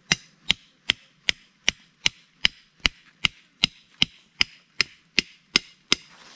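A knife chopping at a wooden stick, about sixteen sharp, even strokes at close to three a second, stopping just before the end.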